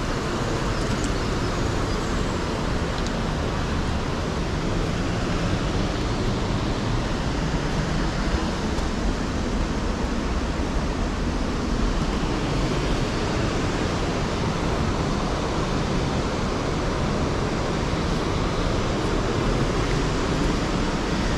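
Steady rushing noise without pauses or distinct events, heavy in the low end.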